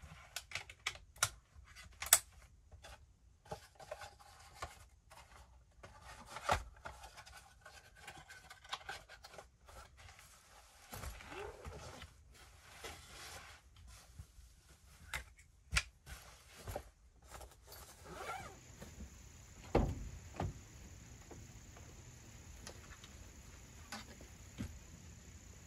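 Clicks, knocks and scraping of a rifle being handled in a soft gun case. After a cut, a steady high insect buzz, with a heavy thump a couple of seconds later.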